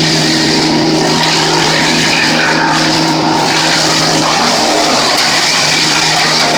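Small gasoline engine of tree-work power equipment running steadily at high speed, with a dense rasping noise over its steady pitch.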